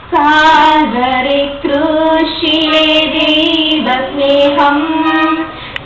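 A girl singing solo into a microphone: a sung passage of a Malayalam kathaprasangam, in long held notes with short breaks about one and a half and four seconds in.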